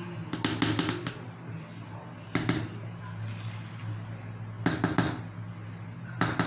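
Cake pan filled with batter being tapped down on the counter to settle the batter: a series of knocks in small clusters, over a steady low hum.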